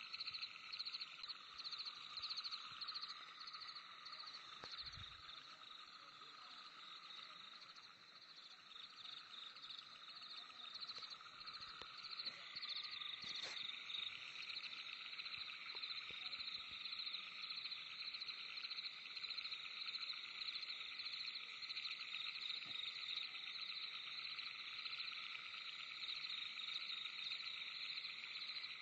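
Night chorus of frogs and insects: dense, rapid trilling in several steady high pitch bands, thinning out for a few seconds and then growing fuller a little before halfway.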